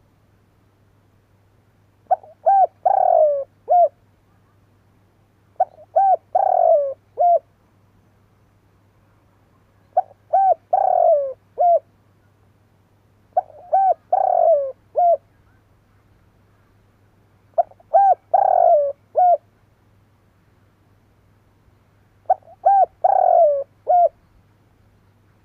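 Spotted dove cooing: six repeated phrases about four seconds apart. Each phrase is a couple of short coos, a longer, louder falling coo, and a short closing note.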